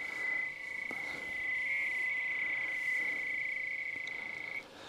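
Steady high data tone of a 300 bps modem connection on the line while ExpressNet sends programming blocks down to a Protel payphone. The tone wavers slightly and breaks off briefly near the end.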